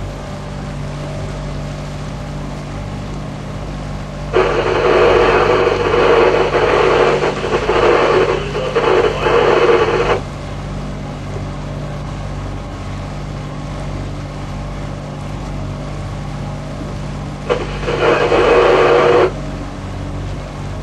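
A boat's engine runs with a steady low hum. Twice a loud rushing noise starts and stops abruptly over it: once about four seconds in for about six seconds, and again near the end for about two seconds.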